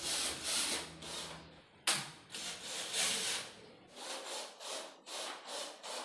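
Rhythmic scraping strokes, about two a second, of a hand tool rubbing along the edge of a gypsum ceiling board, with one sharp knock about two seconds in.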